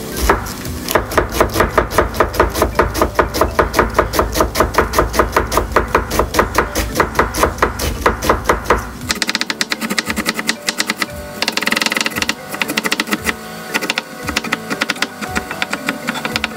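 Kitchen knife shredding cabbage on a cutting board: a steady run of quick chopping strikes, about five a second, turning faster and denser about nine seconds in.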